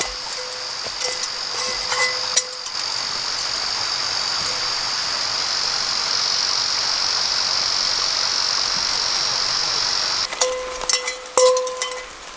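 An insect's steady high-pitched buzz that cuts off suddenly about ten seconds in, with scattered light clicks and clinks near the start and end.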